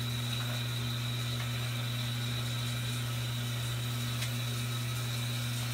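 A steady low hum with an even hiss over it, unchanging throughout, and a faint tick about four seconds in.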